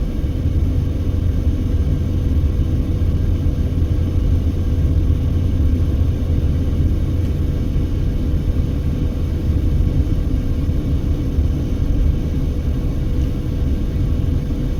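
Steady road noise heard from inside a moving car: a low rumble of tyres and engine at an even pace, with a faint steady hum above it.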